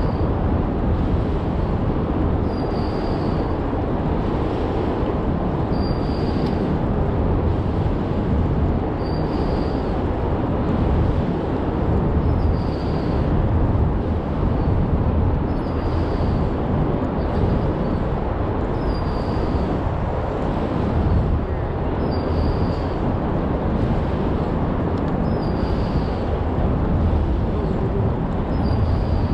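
Steady, loud low rumble of wind and city traffic on the waterfront, with a short high-pitched tone repeating about every three seconds.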